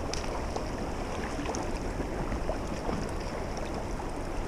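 Stream water rushing steadily over rocks, with a few faint ticks.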